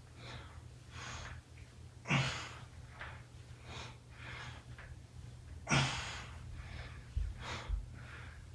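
A man breathing hard during reverse crunches: short, sharp exhales in a rough rhythm, two of them louder and more forceful, about two seconds in and near six seconds. Two soft low thuds come near the end, over a steady low hum.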